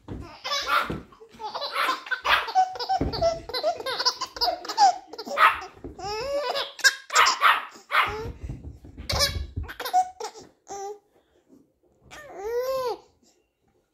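A baby laughing, mixed with adult laughter and a dog barking, in bursts through most of the clip. Near the end there is one short call that rises and falls in pitch.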